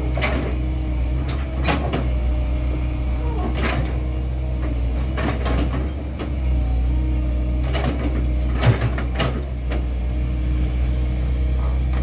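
Komatsu PC128US hydraulic excavator's diesel engine running steadily while its bucket digs into dirt and rock, with short scraping clanks every second or two and one sharper knock about three-quarters of the way through.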